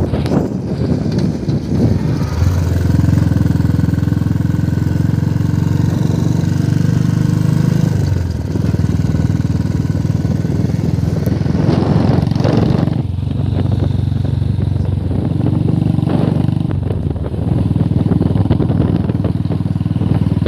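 Royal Enfield Bullet's single-cylinder engine running as the motorcycle is ridden along a road. Its steady note eases off and picks up again about three times.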